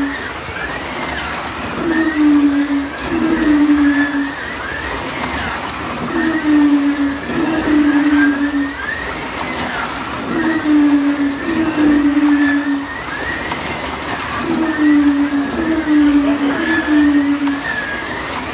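Several slot cars lapping the track, their small electric motors whining continuously. The sound swells in groups of two or three as the cars pass close by, about every four seconds.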